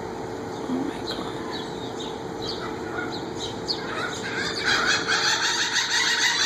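A flock of birds calling as they are fed thrown bread: scattered short high calls at first, then from about four and a half seconds a dense, louder chorus of overlapping repeated calls.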